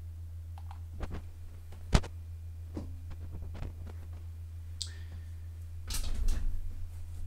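Scattered clicks and knocks over a steady low hum: one sharp knock about two seconds in, a few lighter clicks after it, and a short burst of clattering near the end.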